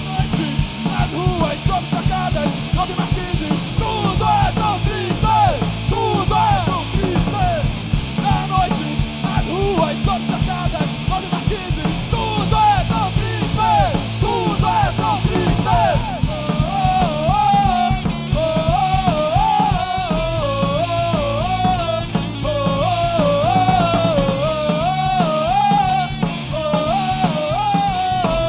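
Punk hardcore band playing live: distorted electric guitars, bass guitar and drum kit. A melodic line with a wavering pitch rides over the top in the second half.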